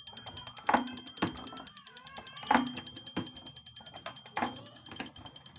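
Kobelco common-rail diesel injector ticking rapidly and evenly, about ten clicks a second, as a test bench pulses it and it sprays fuel. A few louder clacks stand out over the ticking.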